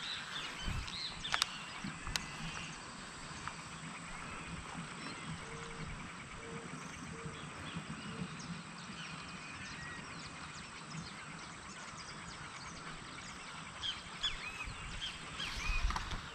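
Quiet outdoor ambience with birds calling: short high chirps near the start and again near the end, and four short, evenly spaced low calls in the middle.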